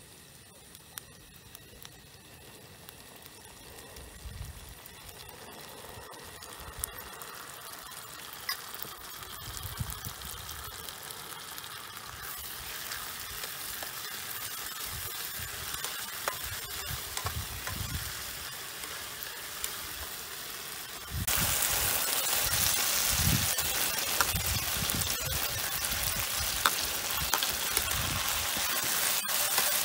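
Sliced green banana and chili stir-frying in a frying pan: a sizzle that builds steadily and then jumps suddenly louder about two-thirds of the way through, with a metal spatula scraping and tapping the pan.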